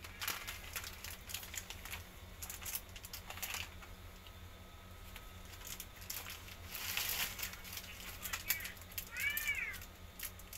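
Crinkling and rustling of plastic candy wrappers and a plastic bag as individually wrapped strawberry marshmallow candies are sorted and one is twisted open, in many short irregular bursts. Near the end a short high-pitched call sounds once.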